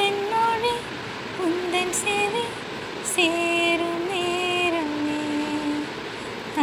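A woman singing a Tamil lullaby (thalattu) unaccompanied in slow phrases, the last one drawn out into long held notes that step down in pitch.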